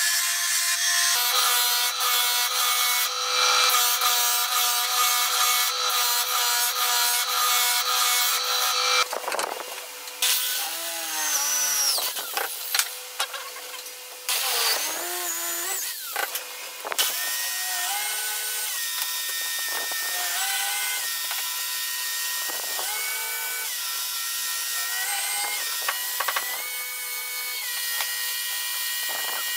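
A sanding drum set into the bench running with a steady whine while a wooden chair leg is sanded against it. After a few cuts, an electric drill in a wooden drill-press stand spins up, winds down and bores holes in wood, its whine stepping down and back up several times.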